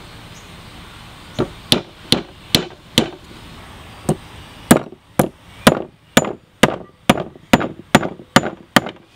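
Small ball-peen hammer tapping the end of a new wooden handle in the eye of a Swedish hammerhead, seating the head. About sixteen sharp blows: five spaced ones in the first half, then a steady run of about two a second.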